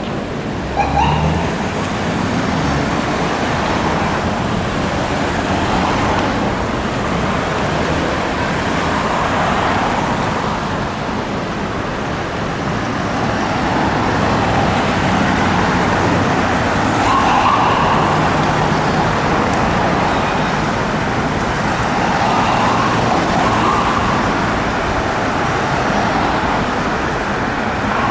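Busy city street traffic with an ambulance siren wailing in slow rising and falling sweeps through it. A short horn blast sounds about a second in.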